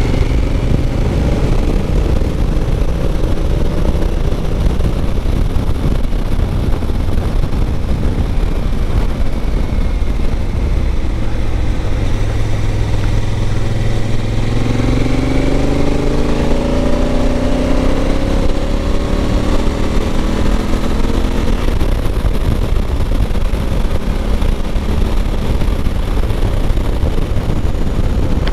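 Motorcycle engine running at track speed under the steady rush of wind noise on an onboard camera. The engine note climbs in pitch between about twelve and twenty seconds in as the bike accelerates.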